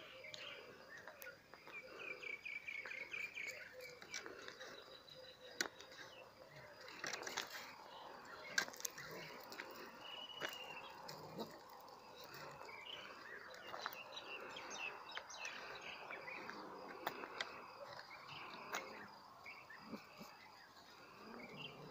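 Quiet outdoor ambience: scattered short high chirps, with a quick run of them a couple of seconds in, over light clicks and crunches like footsteps on gravel.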